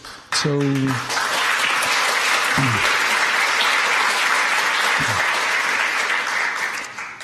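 Audience applauding: the clapping breaks out suddenly, holds steady for several seconds, then dies away near the end.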